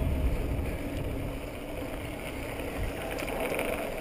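Mountain bike rolling downhill on an asphalt path: steady tyre rumble mixed with wind noise on a helmet-mounted camera's microphone.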